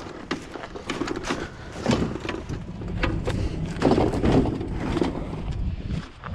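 Irregular knocks, clatters and rustling of junk being handled and moved by hand, thickest through the middle.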